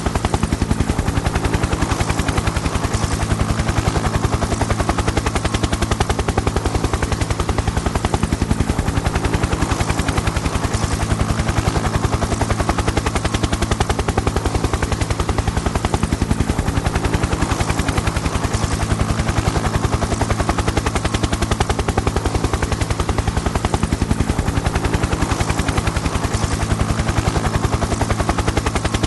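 Helicopter rotor chopping at a fast, even beat over a steady engine drone, holding constant without approaching or fading.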